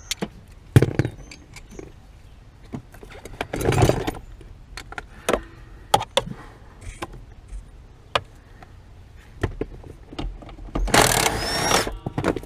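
Metal knocks, clicks and rattles as a brake pedal assembly is worked loose under a car's dashboard, with a longer scraping rattle about four seconds in and again near the end, where there is a brief squeak.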